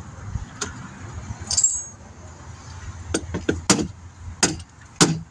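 A light metallic clink about a second and a half in, then a run of sharp, irregular knocks from about three seconds in: plastic push clips being knocked back into their holes.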